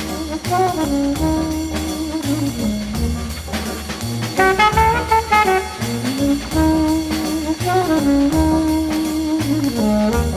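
Background jazz music with brass instruments carrying the melody over a steady beat.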